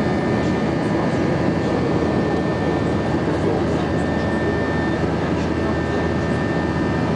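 Jet airliner cabin noise during the climb after take-off: the steady rush of the turbofan engines and airflow heard from a window seat, with a thin steady whine on top.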